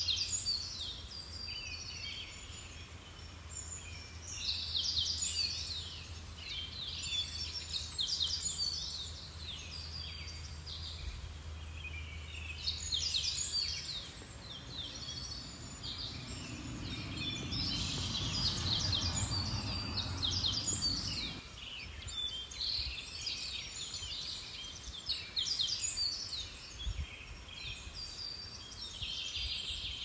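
Small birds chirping and singing outdoors in quick runs of short high notes. There is a low steady hum underneath for the first half, and about two-thirds of the way through a low rushing noise swells for several seconds and then cuts off abruptly.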